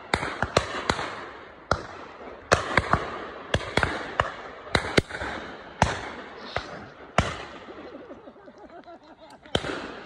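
Shotguns firing at driven pheasants: a rapid, irregular run of shots from several guns, some close and loud, others fainter and farther down the line, each one trailing off. The firing thins to a lull near the end, then a loud shot follows.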